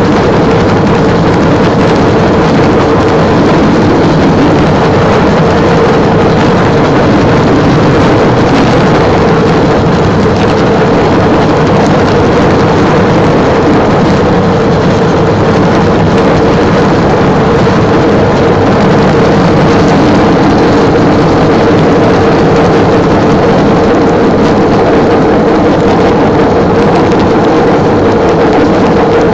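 Engine of a small motorised rail vehicle running steadily as it travels along the track, a constant loud drone with a steady hum.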